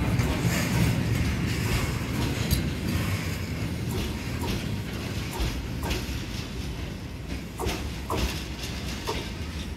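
Train rumbling slowly along the tracks, gradually fading, with a few short sharp knocks in the second half.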